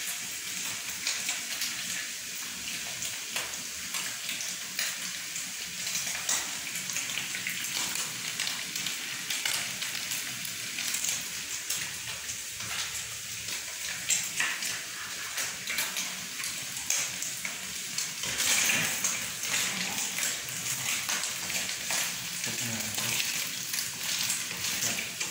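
Beef broccoli stir-fry sizzling in hot oil in a pan: a steady crackling hiss with small pops throughout.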